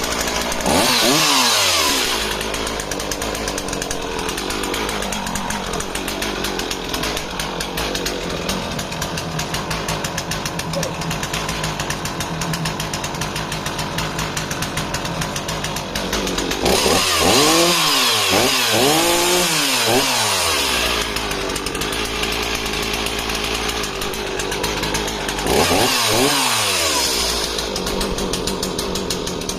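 Stihl 044 two-stroke chainsaw running at idle, with the throttle opened in bursts that rise and fall in pitch: once near the start, several quick revs a little past the middle, and once more near the end.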